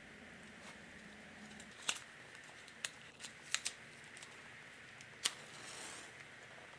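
A cigarette lighter being struck: five sharp clicks spread over a few seconds, two of them in quick succession, then a short soft hiss.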